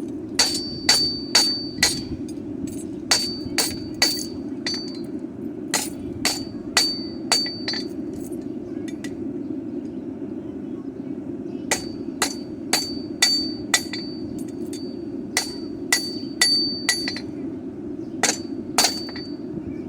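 Blacksmith's hammer striking a horseshoe on an anvil, each blow ringing, in runs of several quick blows with short pauses and one longer break near the middle. A steady low rumble sits underneath.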